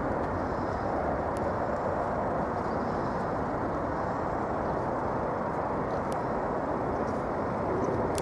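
Airbus A380-841's four Rolls-Royce Trent 970 turbofans at takeoff thrust as the jet climbs away: a steady, deep jet rumble that cuts off suddenly near the end.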